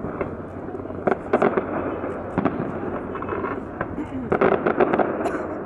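Aerial firework shells bursting in a rapid string of sharp bangs and crackles, heaviest about a second in and again around four and a half seconds in.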